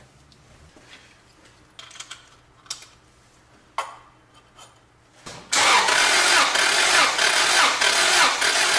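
A few light metal clicks as the compression gauge hose is fitted into the spark plug hole. Then, about five and a half seconds in, the four-cylinder engine is cranked over by its starter without firing, with a rhythmic pulsing as each cylinder comes up on compression. This is the cranking for a wet compression test, with oil squirted into the cylinder.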